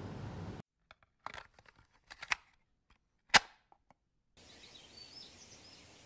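A few sharp, isolated clicks and snaps over near silence, the loudest about three seconds in. In the last second and a half, faint birds chirping.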